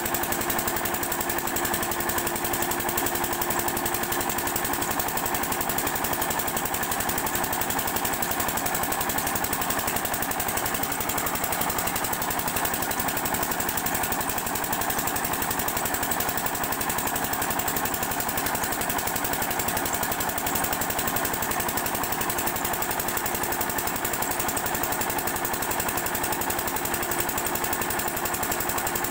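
Single-cylinder 8 hp diesel water-pump engine running steadily with a rapid, even chug, while water gushes from the pump's outlet pipe and splashes into the tank below.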